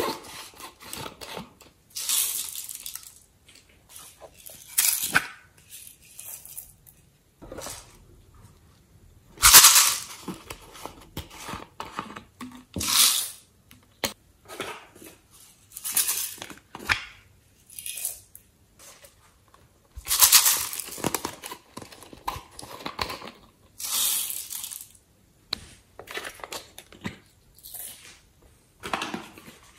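Slime ingredients being added to a glass baking dish: plastic squeeze bottles squirting and glitter and sequins being sprinkled in. It comes as a series of short hissing, rattling bursts a few seconds apart, with light clicks and taps of containers in between.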